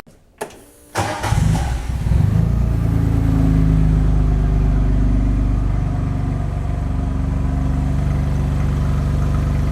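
John Deere Gator 825i UTV's three-cylinder engine idling in a garage, the exhaust running steady and even. It comes in about a second in after a brief quiet gap and settles into a level idle.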